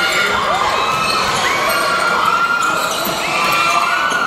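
Basketball game on an indoor court: sneakers squeaking on the hardwood again and again, the ball bouncing, and the crowd cheering.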